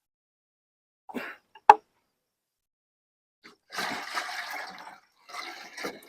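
Water splashing and gurgling as it is poured into the sawmill's blade-lubrication water container, in two spells, after a short knock and a sharp click just under two seconds in.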